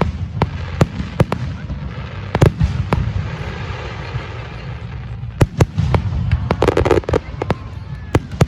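Fireworks display going off: a rapid string of sharp bangs and pops over a steady low rumble, thinning out in the middle and coming thick and fast again after about five seconds.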